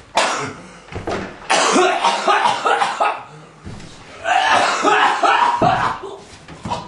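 A person coughing hard in three long fits, with shorter coughs between them.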